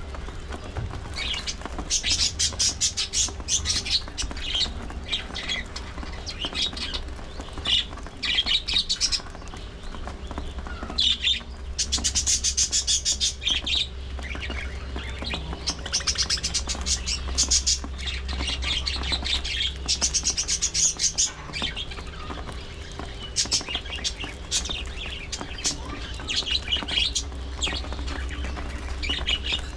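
Budgerigars chattering and chirping, in rapid bursts of high chirps every second or two, over a low steady hum.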